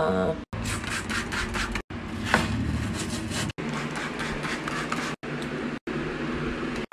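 Hands rubbing and scraping at surfaces while cleaning, in several short pieces that each stop abruptly. The first piece has quick repeated scrubbing strokes.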